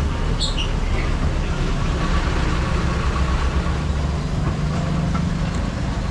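A vehicle engine running with a low, steady rumble, with a few short high chirps about half a second in.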